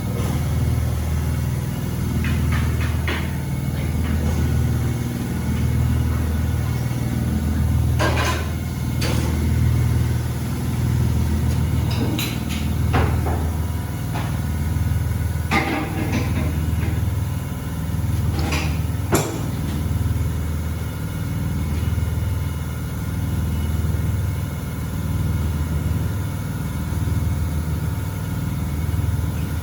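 A steady low mechanical rumble from a running engine or motor, pulsing slowly, with several sharp clanks, some in pairs, between about two and twenty seconds in.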